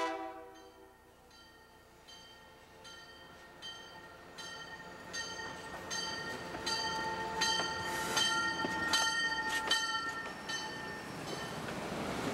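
A grade-crossing bell rings in quick, even strokes, about two to three a second, as a Budd Rail Diesel Car approaches, growing steadily louder. Near the end the railcar's wheels rumble and rush past close by.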